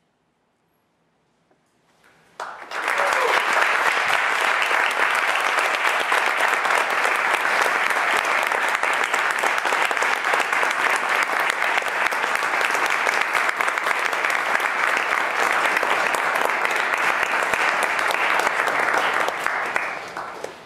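Audience applauding, starting abruptly about two and a half seconds in after a short silence, holding steady and dying away near the end.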